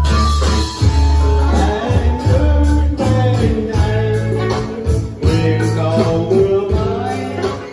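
Live amplified band music: a man singing through a microphone over guitar and an electronic drum kit, with a sustained bass line.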